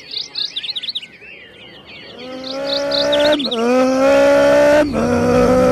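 Birds chirp, then a GT3 race car engine rises in level as the car accelerates hard, with a brief cut and drop in pitch at each of two upshifts.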